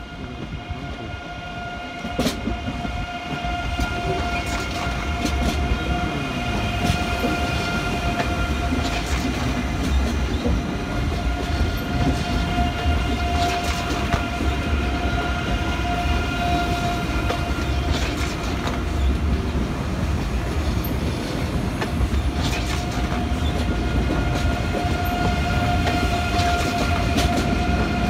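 Deutsche Bahn ICE 3 (class 406) high-speed electric train rolling slowly past: a loud rumble of wheels on rail with steady high whining tones and scattered sharp clicks. It grows louder over the first few seconds as the train draws level.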